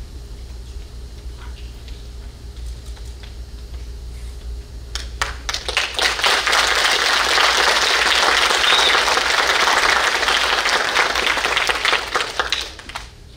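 Auditorium audience applauding. The clapping starts about five seconds in, quickly grows loud and dense, and dies away near the end.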